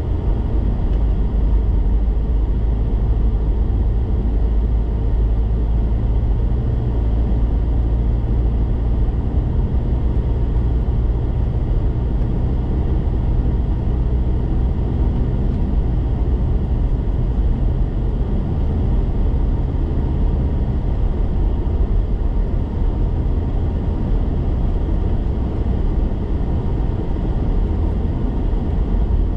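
Steady low rumble of a car being driven at road speed, heard from inside the cabin: engine and tyre noise with no sudden events.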